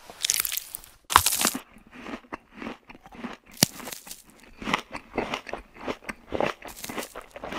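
Crisp crunching and crackling of a crusty bread loaf being torn apart by hand: two longer crunches in the first second and a half, then a quick run of short crackles and snaps.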